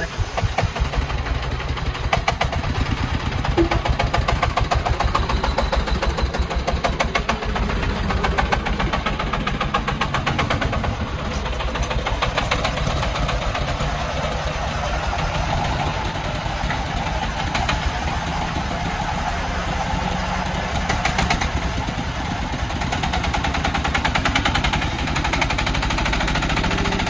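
Single-cylinder diesel engine of a three-wheeled công nông dump truck running with a rapid, even knocking beat, steady throughout.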